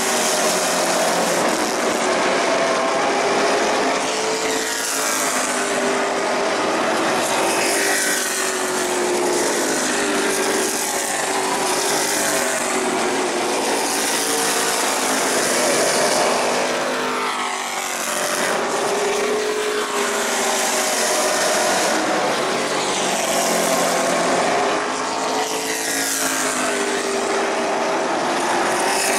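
A field of stock cars racing on an asphalt short track. Their engines run hard in a continuous drone, swelling in waves every few seconds as cars sweep past.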